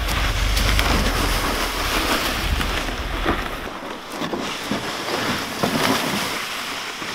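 Plastic jet sled loaded with a pine stump scraping and rattling as it is dragged over a dirt and gravel track, with footsteps crunching. Wind rumbles on the microphone until about halfway through.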